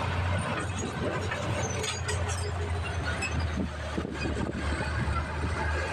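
Diesel dump truck engine running steadily.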